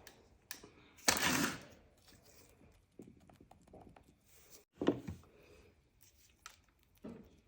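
Kitchen handling noises: a few light knocks, a louder noisy scrape or rustle about a second in, and a short thunk near the middle.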